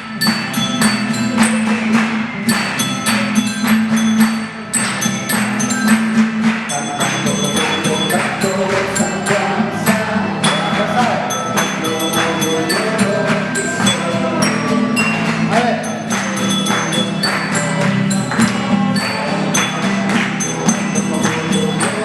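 Live Andean-style music: an ensemble playing over a steady, quick rhythm of percussion strikes, with a wavering melody coming in about seven seconds in.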